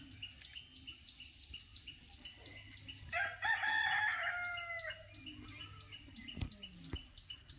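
A rooster crowing once, about three seconds in: a single call of nearly two seconds that drops in pitch at the end, over faint chirping that repeats a few times a second.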